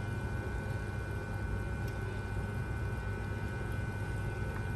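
Restaurant room tone: a steady low hum with faint, thin, steady high tones above it.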